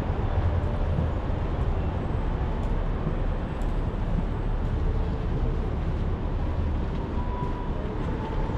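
Steady low rumble of a moving vehicle, with faint steady tones above it.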